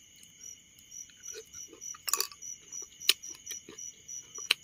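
Night-time insect chorus, crickets chirring steadily with a high, evenly pulsing note, and a few sharp clicks about two, three and four and a half seconds in.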